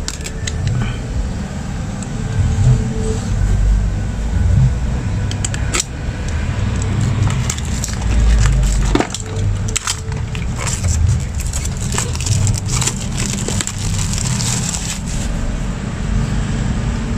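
Clear plastic wrap on a small cardboard box being slit with a utility knife and peeled off by hand, crinkling and crackling, with low handling thumps; the crackling is densest in the middle and latter part.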